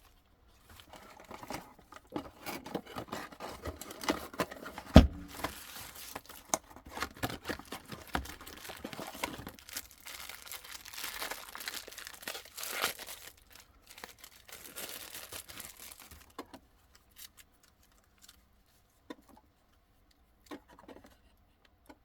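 Packaging being unwrapped: wrapping crinkling and tearing, with many small clicks and one sharp knock about five seconds in. The handling thins out to a few scattered clicks over the last five seconds.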